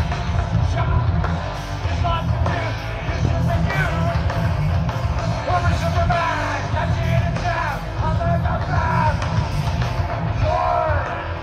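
Live thrash-punk band playing loud and heavy through a large outdoor stage PA, with yelled vocals over a thick bass-and-drum wash.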